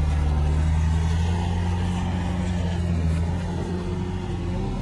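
A Range Rover's engine running steadily at low revs as the vehicle crawls up a sandy off-road slope, a steady low hum.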